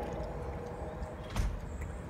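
Outdoor garden background: a steady low rumble with faint bird chirps, and a single short knock about one and a half seconds in.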